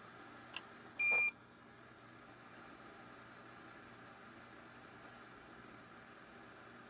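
A small click, then one short electronic beep from bench equipment about a second in, over a faint steady fan hiss.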